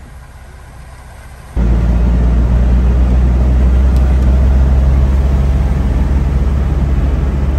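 Cab noise of a 1995 Land Rover Discovery with a swapped-in 200Tdi turbo-diesel on the move: a loud, steady low engine drone with tyre and road noise, beginning suddenly about one and a half seconds in after a stretch of faint low rumble.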